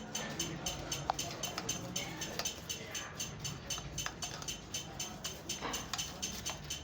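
Steady rhythmic mechanical ticking, about four or five ticks a second, over a low hum, with a few sharper clicks.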